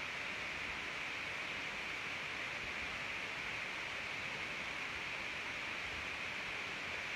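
Steady, even hiss of background room noise picked up by a phone microphone, with no other sound.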